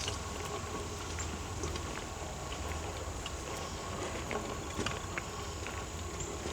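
Footsteps on forest litter, with scattered sharp clicks and twig snaps, over a steady low rumble.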